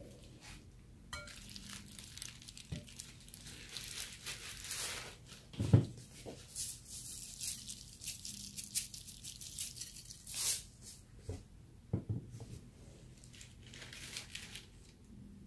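Plastic crinkling and rustling in short irregular bursts, with two dull knocks, the louder about six seconds in.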